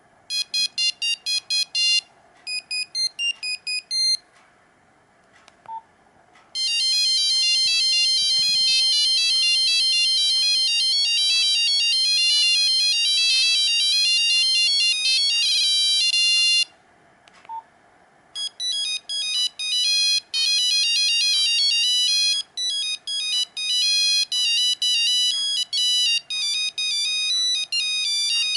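Nokia 5125 mobile phone playing its built-in monophonic ringtones one after another: short beeped melodies of fast, pure-toned notes. Two brief pauses separate the tunes, each holding a single short low beep.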